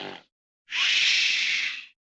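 Snoring sound effect: a rattling snore breathed in ends just after the start, then after a short pause comes a long, hissing breath out.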